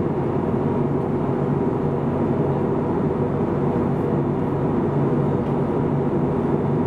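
Steady cabin noise of an Airbus A321neo in flight: the even drone of airflow and its Pratt & Whitney geared turbofan engines, with a few low steady hum tones.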